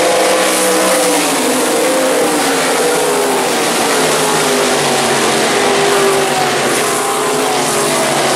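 Several winged sprint car engines racing at high revs on a dirt oval, overlapping, their pitches rising and falling as the cars pass.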